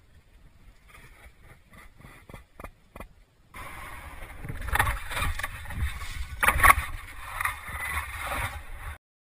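Snowboard sliding and scraping over snow. A few faint clicks come first; the louder, rough scraping starts suddenly about three and a half seconds in, surges several times, then cuts off just before the end.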